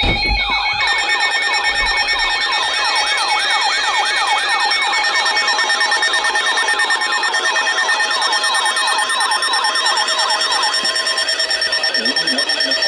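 Electronic emergency-alert alarm tones: several steady tones layered with a fast siren-like warble that sweeps up and down about three times a second. The warble stops near the end while the steady tones go on.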